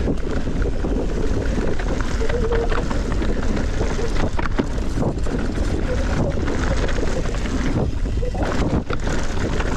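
Wind rushing over the microphone with a steady low rumble and scattered clicks and rattles, as from riding a bicycle over rough ground.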